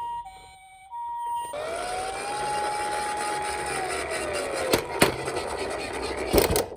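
Toy ambulance's electronic two-tone hi-lo siren, the Japanese "pee-po" pattern, which cuts off about a second and a half in. A noisier toy siren sound follows, its tone rising, holding and then falling. Two sharp clicks come about five seconds in, and a short clatter comes near the end.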